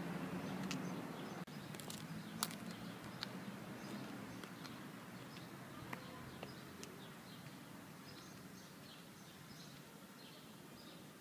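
High-heeled shoes clicking on paving stones, the footsteps growing fainter as the walker moves away, over steady background noise. Small birds chirp in the second half.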